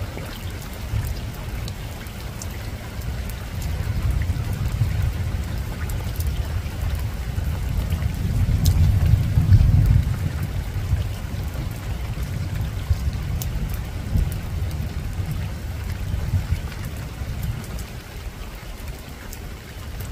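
Steady soft rain falling on a rooftop, with scattered drops ticking sharply. Under it, a low rumble of distant thunder builds from about four seconds in, peaks near the middle, then eases off.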